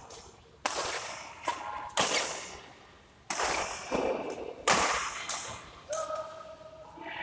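Badminton rackets striking a shuttlecock back and forth during a doubles rally: about seven sharp hits, the loudest a second or more apart, each ringing out in the hall's echo. A short squeak, likely a shoe on the court, comes near the end.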